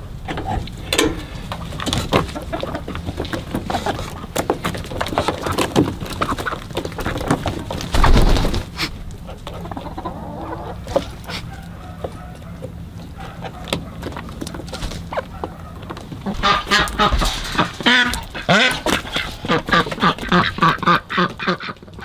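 Farm poultry calling: chickens clucking and waterfowl honking, busiest in the last six seconds. A coop door's metal latch clicks at the start, and a loud thump comes about eight seconds in.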